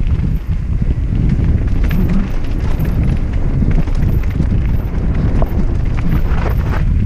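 Mountain bike riding down a rough trail: the tyres and bike rattle and knock irregularly over the bumpy ground, under a loud deep rumble of wind on the action camera's microphone.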